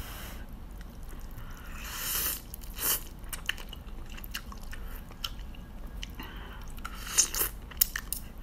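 A person slurping and chewing fried instant noodles, with wet mouth smacks. There are a few loud slurps, the loudest about seven seconds in.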